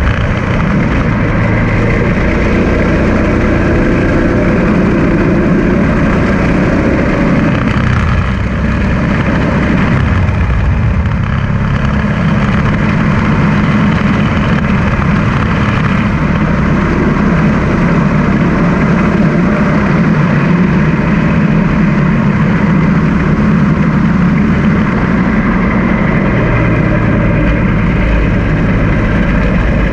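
Small go-kart engine running steadily under way. Its note sags about eight seconds in, then holds steady again.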